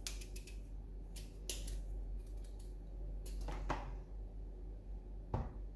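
Kitchen knife paring the skin off thick pumpkin slices on a cutting board: faint cutting and scraping with scattered clicks and taps of the blade and pieces against the board.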